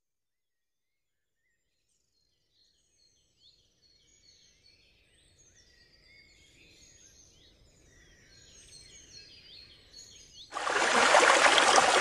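Birds chirping and twittering, fading in from silence over a faint low rumble. Near the end a loud, steady rush of running water cuts in suddenly.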